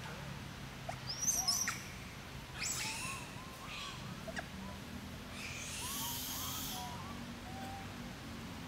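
Animal calls: short, high, sweeping chirps and squeaks about a second in and again near three seconds, then one harsh, raspy call lasting about a second past the middle, with small squeaks dotted throughout. A low steady hum runs underneath.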